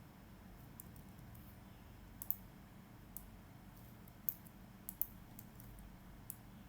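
A few scattered, irregular keystrokes on a computer keyboard, clicking faintly over a low steady hum.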